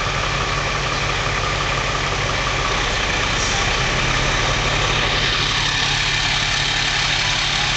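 Antique fire truck engine running steadily at low speed, with a low, even rumble as the truck creeps forward.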